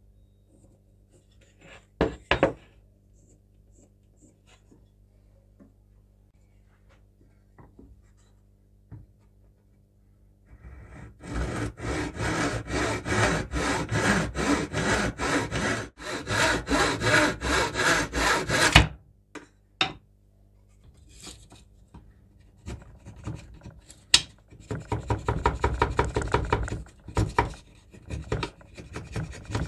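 Hand tool rasping and scraping a wooden hammer handle in quick repeated strokes, about three a second, starting about a third of the way in and stopping abruptly, then resuming in shorter strokes near the end as a small wooden wedge is shaped. A couple of sharp knocks sound about two seconds in.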